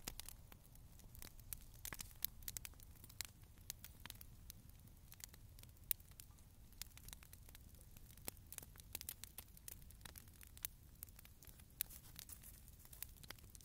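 Wood fire crackling: faint, irregular sharp pops and snaps over a low steady rumble.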